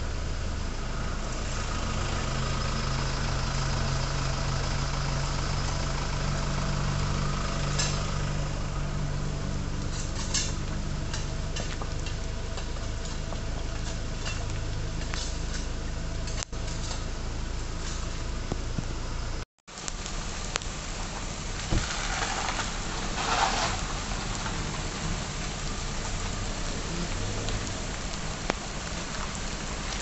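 A motor vehicle engine idling steadily with a low hum, under a constant hiss of rain. The sound cuts out for a split second about two-thirds of the way through.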